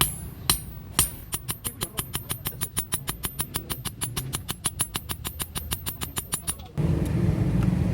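A few separate sharp strikes, then a fast, even run of taps at about nine a second for about five seconds. Near the end a steady low motor hum starts up.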